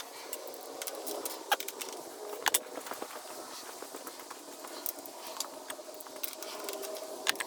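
Hand tools and parts being handled while working on a motorcycle: scattered light clicks and clinks, with sharper knocks about one and a half, two and a half and seven seconds in.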